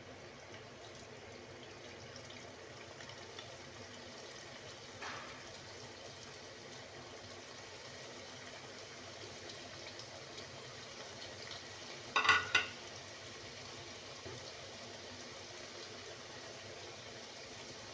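Somas, maida-dough pastries, deep-frying in hot oil in a stainless steel kadai: a steady sizzle and bubbling as the pastries are slid in one after another. A brief clatter about two-thirds of the way through is the loudest sound.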